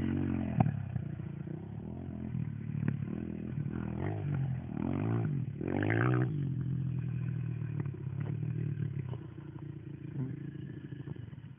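Dirt bike engine revving up and down as it rides, heard from a distance. The pitch climbs and drops several times, highest about six seconds in, and the engine gets quieter near the end.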